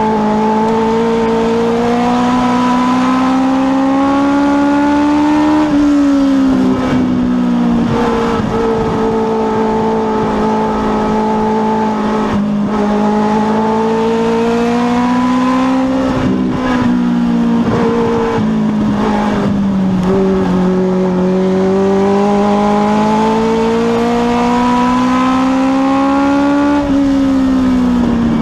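Legends race car's Yamaha motorcycle-derived engine heard from inside the cockpit under racing load. Its pitch climbs steadily as the car accelerates, then drops sharply when the throttle is lifted. This happens three times.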